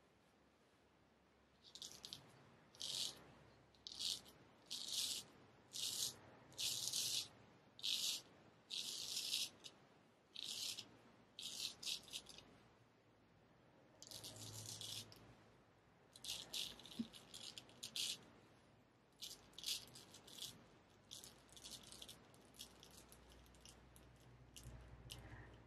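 Straight razor scraping through lathered stubble, stroke by stroke: short rasping passes about one a second, then after a brief pause one longer pass followed by quicker, shorter strokes.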